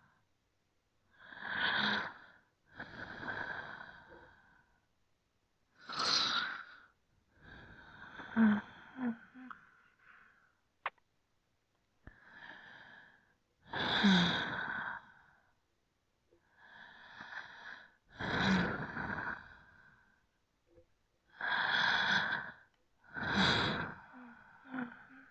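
Slow, deep human breathing, in and out, close to the microphone: about eleven separate breaths of roughly a second each, with short pauses between them. A few carry a short low note in the throat.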